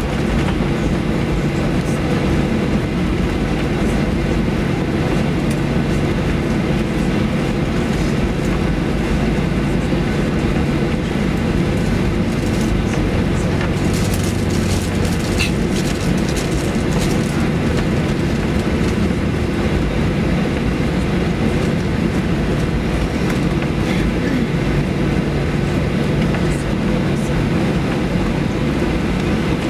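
Cabin noise of a Boeing 737-800 taxiing: a steady low rumble from its CFM56 engines at low taxi thrust and its wheels rolling on the taxiway, with a hiss above.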